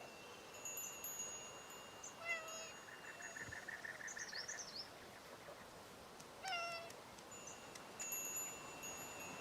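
A cat meows twice, about two seconds in and again about six seconds in, while wind chimes ring softly in the background.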